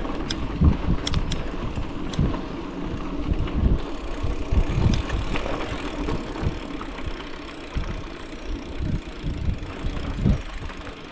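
Bicycle rolling along a dirt forest trail: steady tyre rumble with irregular knocks and rattles as it goes over bumps.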